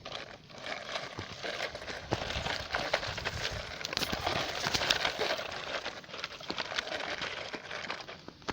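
Loose dirt and small stones crunching and rattling in a dense run of small clicks, as toy-scale earth-moving work shifts soil. It builds about a second in and eases near the end.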